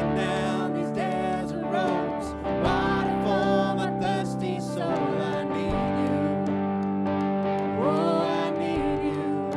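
Live worship band music: guitar playing over sustained held chords, with a melodic line that slides in pitch.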